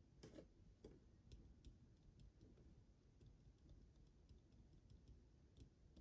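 Faint fingertip taps and clicks on the touch-control buttons and base of an LED desk lamp: a dozen or so light ticks, with two slightly heavier knocks in the first second.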